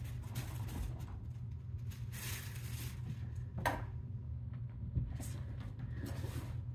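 Kittens playing on a wooden floor and rugs: scattered light knocks, taps and scuffling rustles of paws and toys, with a sharper knock a little past halfway, over a steady low hum.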